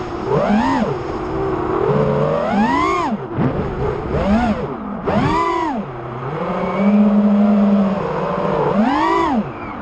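5-inch FPV quadcopter's brushless motors and propellers whining, the pitch swooping up and down with repeated throttle punches and chops, dropping sharply about three seconds in and again near six seconds, then held steadier for a couple of seconds before another punch.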